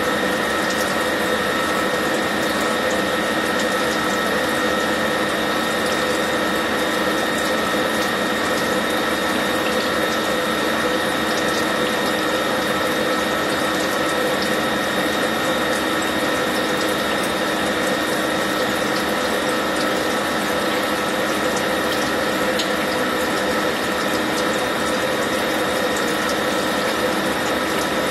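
Deckel FP4A CNC milling machine running steadily while an 8 mm reamer cuts a hole under flood coolant: an even mechanical whine from the spindle drive over the hiss of coolant pouring and splashing.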